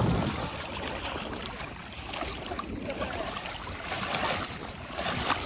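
Steady outdoor noise of water and wind.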